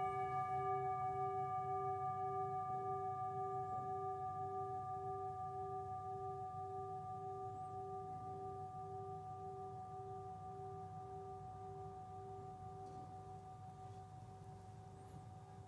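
A struck singing bowl ringing out, several tones fading slowly together, the lowest one pulsing in a slow wobble about twice a second.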